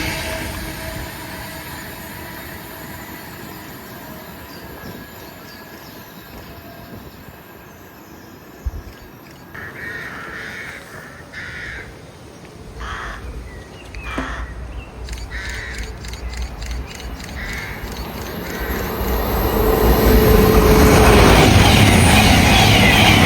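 A passing train fades away, then crows caw several times over the quieter stretch before another train approaches and becomes loud near the end.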